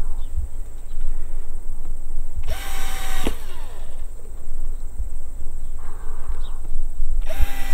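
Cordless drill with a Phillips bit run in two short bursts, about a second each, driving the screws of a Hoof Cinch band on a horse's hoof; the motor's whine drops in pitch as each burst stops.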